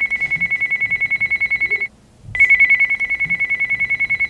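An electronic telephone ringer trilling: a high fluttering tone in rings of about two and a half seconds, with a short break about two seconds in before the next ring.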